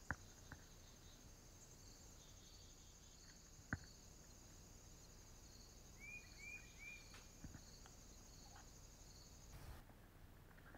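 Near silence with a faint, steady high-pitched whine that cuts off near the end. Two sharp clicks come about three and a half seconds apart, and a bird chirps three times in quick succession about six seconds in.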